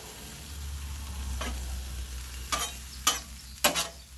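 Shrimp, scallops, onions and mushrooms sizzling on the steel top of a 22-inch Blackstone griddle, with a low hum underneath. A metal spatula scrapes and clicks against the griddle about four times in the second half.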